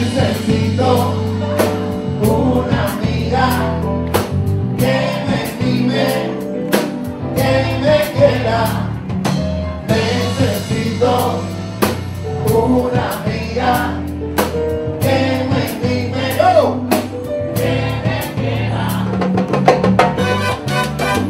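Live Cuban salsa (timba) band playing, with sung lead and chorus vocals over bass, keyboard and Latin percussion.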